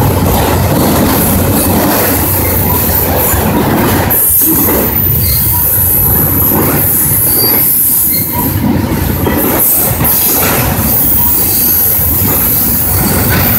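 Freight train of autorack cars rolling past close by: a steady rumble of wheels on rail, with a high-pitched wheel squeal coming and going over it.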